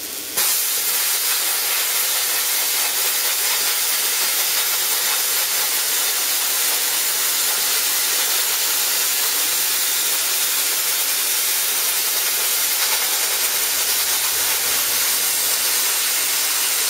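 Plasma cutter running on CO2 welding gas instead of compressed air, cutting 3 mm steel plate: a steady, even hiss of gas and arc that starts abruptly a moment in. On CO2 the cut is slow, rough and lacks power.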